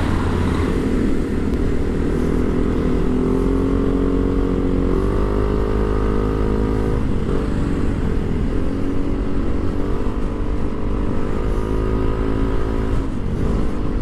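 Yamaha Mio i 125S scooter's single-cylinder engine running under way, its pitch rising as it speeds up about five seconds in, with a steady low wind rumble on the microphone.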